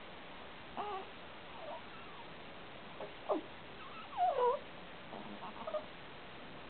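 Newborn baby stirring in sleep, making a handful of short squeaky sounds, some sliding down in pitch, the loudest a little past the middle.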